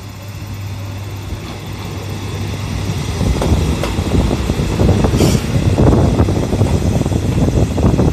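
Kanto Railway KiHa 5000 diesel railcar running into the station close past the platform. A low steady hum at first, then the rumble and rattle of the train on the rails, growing louder from about three seconds in.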